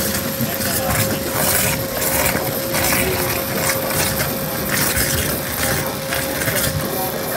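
Flow abrasive waterjet cutting plate: a loud, steady hiss of the high-pressure jet, with a thin steady tone running under it.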